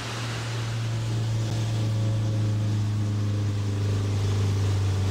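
Motorhome engine running with a steady low drone, heard from inside the cab as it drives up a steep mountain road.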